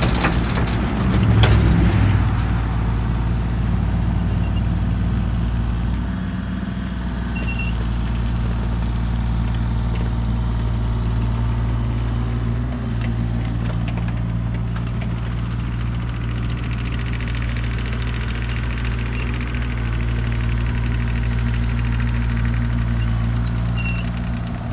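An engine running steadily at a constant low speed, with a few sharp clicks in the first couple of seconds.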